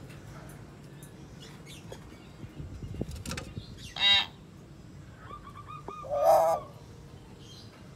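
Hill myna calling: a short loud call about four seconds in, a quick run of short clear notes, then a louder call about six seconds in.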